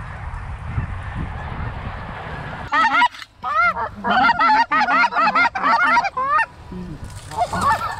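Rapid run of high, yelping specklebelly (greater white-fronted) goose calls, several a second, starting about three seconds in and breaking off briefly near the end. Wind rumbles on the microphone before the calling starts.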